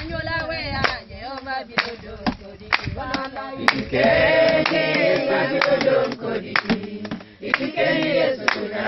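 A group of voices, mostly women, singing together unaccompanied over steady hand clapping; the singing swells loudest in the middle.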